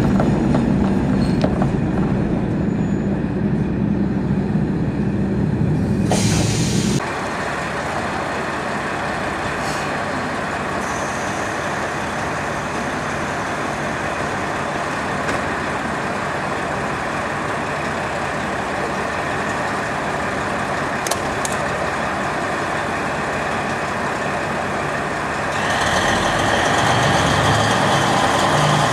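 Diesel engine of a KiHa 40 series railcar (a DMF15 six-cylinder) running at a station stop, heavy in the low rumble at first. About six seconds in comes a short burst of air hiss, and right after it the low rumble falls away to a steadier, quieter running sound. Near the end it grows louder again.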